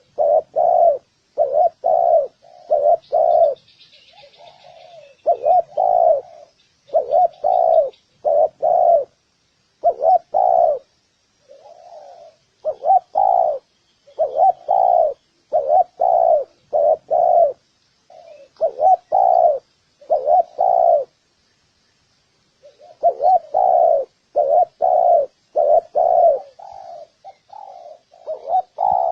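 Spotted dove cooing: low, hooting coos in repeated phrases of several notes, with short pauses between the phrases.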